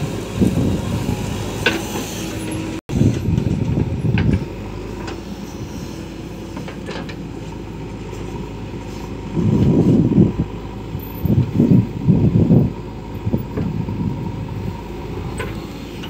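JCB 3DX backhoe loader's diesel engine running steadily, growing louder and rougher in two stretches, one about three seconds in and one from about nine to thirteen seconds in, as it works under load. The sound breaks off for an instant just before the first loud stretch.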